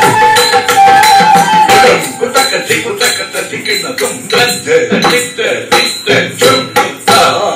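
Live Carnatic accompaniment for Bharatanatyam: a singer's held note for the first couple of seconds, then a quick rhythm of sharp strikes from the nattuvangam cymbals and the dancer's stamping feet, with her ankle bells jingling.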